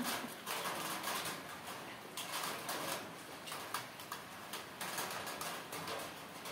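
Dogs' claws clicking and scuffling on a hard floor as several dogs shift about and jump up: an irregular run of light ticks and taps.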